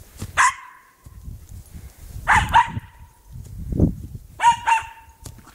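Cairn terrier barking: one bark, then two quick pairs of barks a couple of seconds apart.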